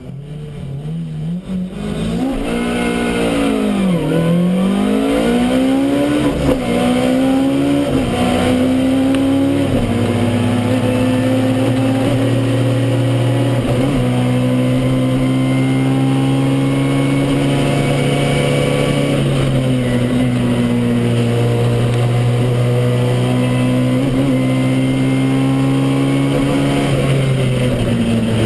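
Toyota Starlet KP61 rally car's engine heard from inside the cabin under hard driving. The revs swing up and down sharply in the first few seconds, then the engine is held at high, nearly steady revs with brief dips at gear changes every few seconds.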